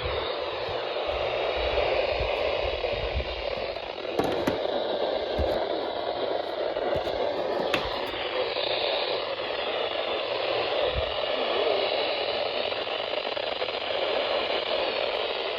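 Weather radio receiver putting out steady static hiss, with a few faint clicks about four, five and eight seconds in.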